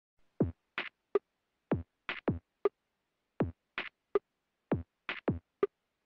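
Intro music: a bare electronic drum beat. A deep kick that drops in pitch, a clap or snare, and a short sharp tick repeat in the same pattern about every second and a half, with gaps of silence between the hits.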